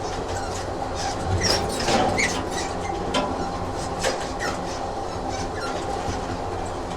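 Train sound effect: a train running along the track with a steady hum, irregular clicks from the wheels, and a few short wheel squeals between about one and a half and four and a half seconds in.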